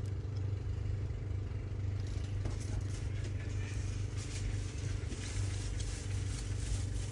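Faint small ticks and scrapes of a precision screwdriver working a tiny screw on an iPhone display's metal bracket, starting about two and a half seconds in, over a steady low background hum.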